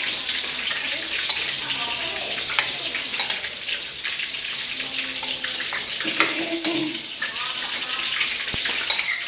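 Pickled lotus roots and young melon slices being stirred in their brine with a fork and fingers: liquid sloshing and splashing with small clicks. A steady hiss runs underneath.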